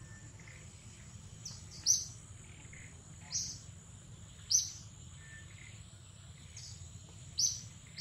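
A bird calling in short, high chirps, about five of them at irregular intervals a second or so apart, over a steady high-pitched insect drone.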